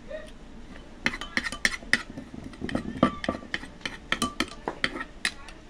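Wooden pestle pounding and a metal spoon turning shredded green papaya in a clay mortar: a run of quick, irregular knocks and clinks starting about a second in.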